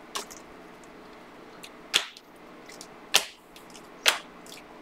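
Panini Prizm basketball cards being flipped through by hand: three short, crisp swishes as one card is slid off the next, about a second apart.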